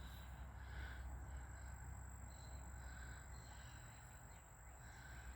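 Faint outdoor ambience: a steady low rumble with soft, short animal calls recurring every second or two in the distance.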